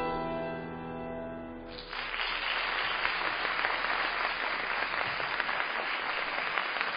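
A grand piano's final chord ringing and dying away, then audience applause breaking out just under two seconds in and continuing steadily.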